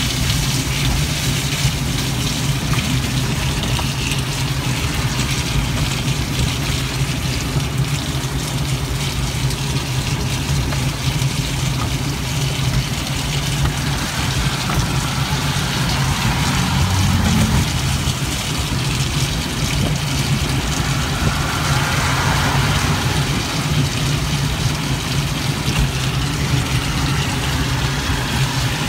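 Steady road and rain noise heard from inside a small vehicle's enclosed cab as it travels a wet road, over a constant low hum from its drive.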